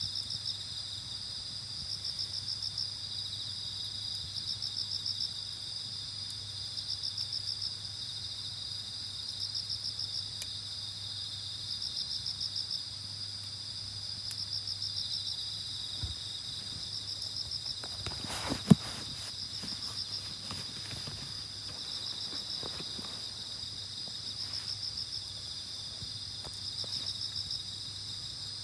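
Night insects singing: a steady high trilling chorus with a louder pulsed chirp repeating about every two and a half seconds. A single sharp snap cuts in about two-thirds of the way through.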